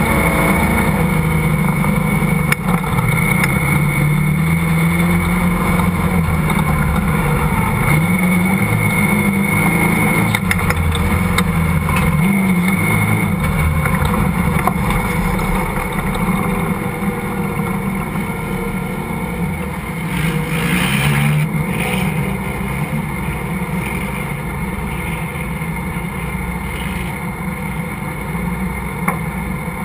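Off-road vehicle's engine revving up and down repeatedly as it climbs and crosses sand dunes, settling steadier and a little quieter for the last several seconds, with a brief hiss about two-thirds of the way through.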